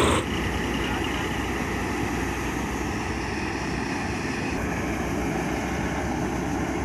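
Kuldeep 932 combine harvester running steadily, a constant engine hum under an even mechanical noise.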